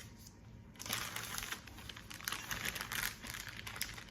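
Plastic wrapping around a chilled pastry dough crinkling as it is handled, starting about a second in and going on in a dense, irregular crackle.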